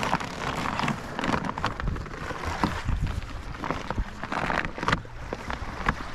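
Scattered knocks and rustles of a folding kayak being handled as someone gets into it, with wind rumbling on the microphone.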